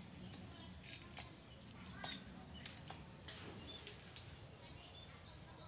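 Dry nipa palm fronds and leaf litter giving short, sharp crackles and snaps as someone moves through the thicket, over a faint steady rumble. Near the end a bird gives a quick run of rising chirps.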